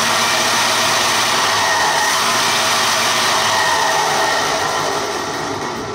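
A 6000-watt, 72-volt electric motor spinning a mini bike's raised rear wheel at high speed: a loud, steady whir with a whine in it, dying away near the end as it slows.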